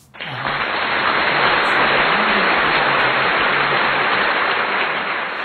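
A loud, even hiss of noise, like static or heavy rain, that starts suddenly and fades out near the end, with a woman's voice faintly beneath it.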